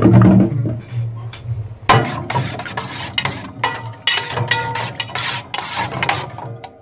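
Metal cutlery clinking and scraping against a metal pan as food is eaten quickly from it: a dense run of quick clinks and scrapes from about two seconds in.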